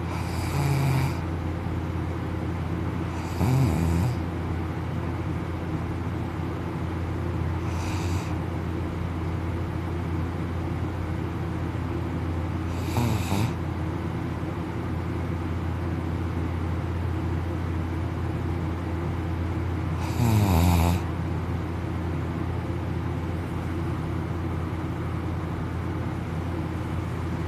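A sleeping man snoring, with five loud, harsh snores several seconds apart over a steady low hum.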